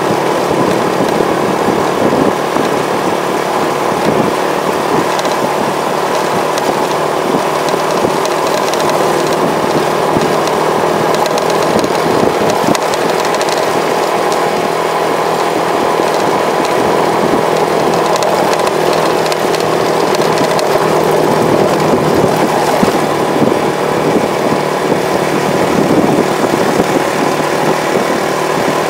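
Motorcycle engines running steadily on a gravel road, a continuous even drone with no marked revving.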